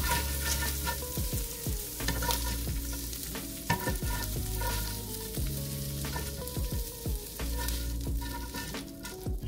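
Shrimp sizzling in hot oil in a nonstick pan while a slotted spatula scrapes across the pan and lifts them out, with repeated short scrapes and clicks of the spatula against the pan.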